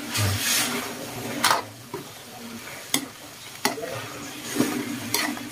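A ladle stirring a simmering milky stew in a wok, with a wet swishing at first and then four sharp knocks of the ladle against the pan.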